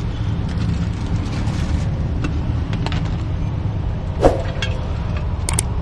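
Steady low rumble of street traffic, with plastic bags crinkling and light clicks and clinks from a ladle and jar as drinks are bagged at a street-food cart. One sharper clink stands out about four seconds in.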